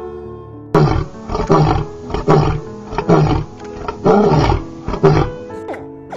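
Big cat roaring: a run of about six loud roars, roughly one every second, starting about a second in and fading out near the end, over calm background music.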